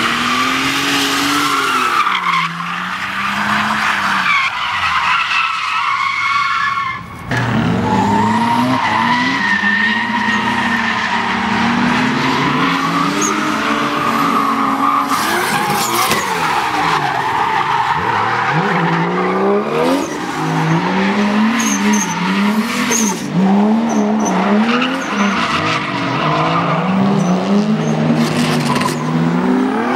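Drift cars, a Nissan Skyline among them, sliding sideways: engines revving up and down as the throttle is worked, over loud tyre squeal. The sound breaks off briefly about seven seconds in, and near the end the engine pitch swings up and down about once a second.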